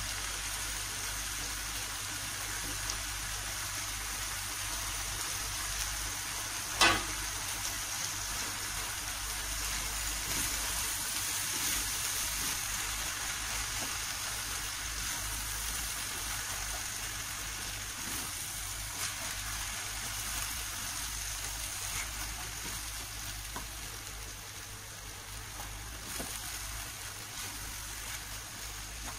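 Noodles and vegetables frying in a wok, a steady high sizzling hiss as cabbage and mustard greens are stirred in with a spatula. One sharp knock about seven seconds in.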